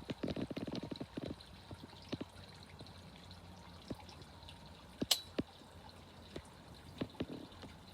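Fountain water splashing and dripping: a dense patter of drops for the first second or so, then scattered single drips, with one sharp click about five seconds in.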